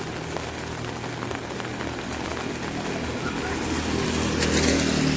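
A motor vehicle's engine humming close by, growing louder toward the end as it nears, over a steady hiss of rain with small drops ticking on an umbrella.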